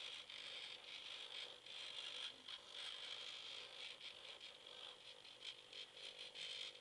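Small hobby servos of an Arduino pan-and-tilt light tracker whirring faintly in many short, jerky bursts as they swing the sensor head left, right, up and down.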